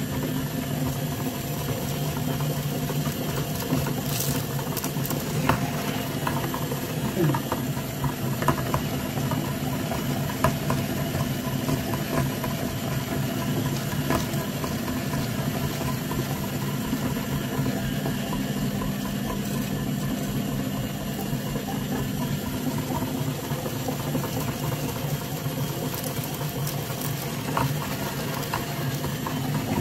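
Metal meat grinder running with a steady mechanical hum as it grinds candy-coated chocolate buttons, with scattered cracks and clicks.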